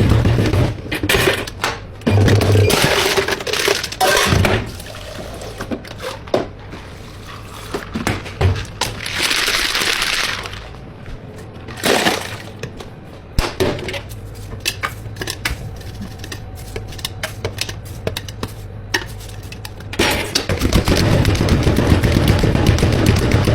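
Clatter of drink-making work: containers, lids and utensils clicking and knocking, with a rush of liquid about nine seconds in. Background music with a beat drops out about a second in and comes back near the end.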